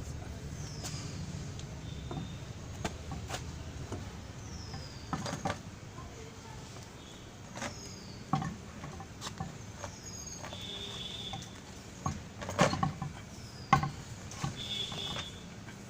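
Scattered knocks and clinks as a car wheel is refitted onto the hub after a brake pad change, the loudest pair of knocks near the end. Repeated short, high, falling chirps sound in the background.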